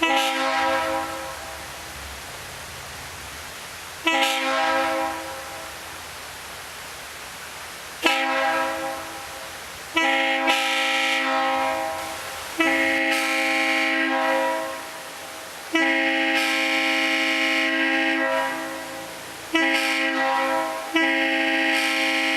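Multi-note locomotive air horn sounding a chord in a series of blasts: two short blasts about four seconds apart, then longer blasts close together, each fading away slowly after it stops.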